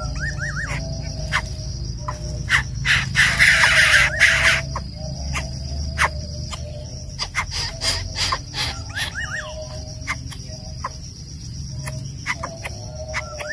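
Outdoor nature sound: a steady high chirring of insects, with scattered clicks and a loud rustling burst about three seconds in, and a few short bird chirps.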